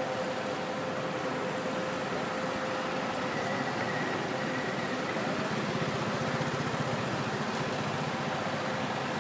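A motor running steadily, with a steady whine over the noise.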